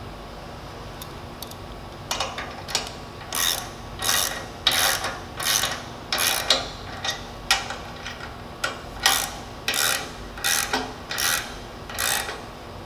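Ratchet wrench tightening the pinch bolts on a heavy-duty C-clamp: a run of short ratcheting strokes, about two a second, starting about two seconds in.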